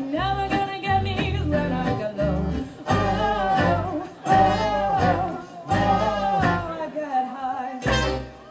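Small live swing band playing: a woman and a man singing over ukulele, archtop guitar, double bass and trumpet. The song stops on a final note shortly before the end.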